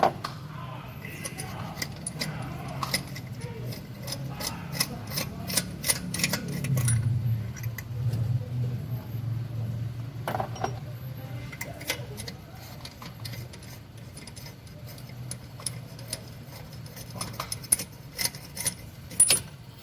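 Irregular metallic clicks and clinks of hand tools working on the engine, such as a spark plug socket and wrench, over a low hum.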